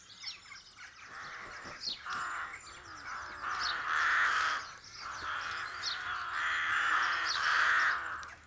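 A colony of rooks cawing at their rookery: many harsh caws overlapping one another, swelling about four seconds in and again through the second half. Short, thin higher calls are scattered among them.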